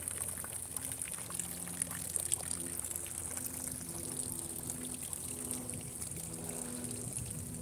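Fountain water pouring and trickling steadily from statue spouts into a basin.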